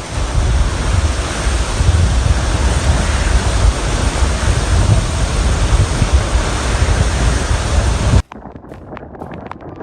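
Storm wind roaring and buffeting the microphone, with a heavy low rumble. About eight seconds in it cuts off abruptly to a much quieter stretch with many sharp taps.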